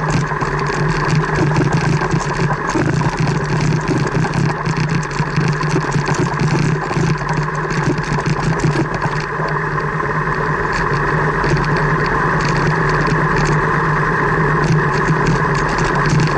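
Car engine running steadily at low speed, heard from inside the cabin, with the frequent crunch and rattle of tyres rolling over a gravel track.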